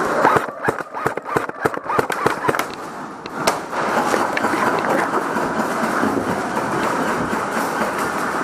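Airsoft guns firing: a string of sharp, irregular snapping shots over the first three seconds or so. After that a steady rustling noise carries on alone.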